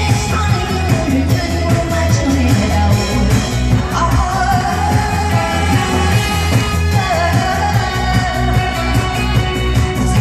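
Amplified stage music: a backing track with a steady, pulsing bass beat and a singer's voice over it.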